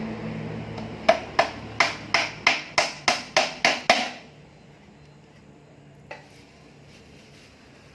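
Hammering during assembly of a noodle machine: about ten quick, sharp strikes at roughly three a second, then one fainter knock a couple of seconds later. A steady mechanical hum dies away in the first second.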